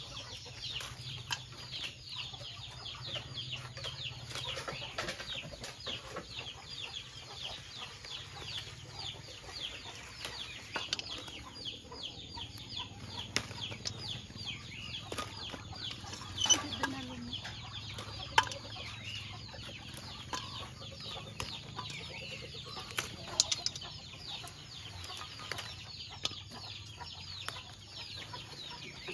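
Many small birds chirping rapidly and without a break: a steady stream of short, high, falling chirps. A few sharp clicks stand out, the loudest about halfway through and again a few seconds later.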